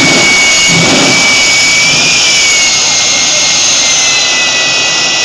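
F-4 Phantom jet engine mounted on a Kenworth semi truck running, a loud rushing roar with a steady high whine whose pitch eases down slightly about two seconds in.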